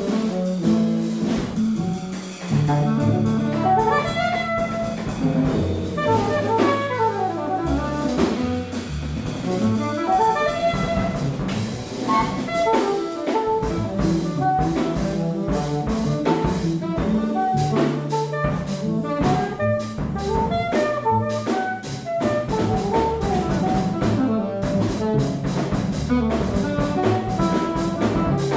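Contemporary jazz quartet playing live: alto and tenor saxophones improvising over double bass and a drum kit with frequent cymbal strokes. About six to eight seconds in, the horn lines slide up and down across each other.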